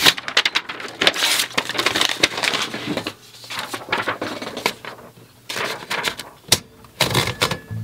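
Paper rustling and clicking as a blank sheet is handled and fed into a manual typewriter, with sharp clicks from the typewriter's platen and paper bail. Acoustic guitar music comes in near the end.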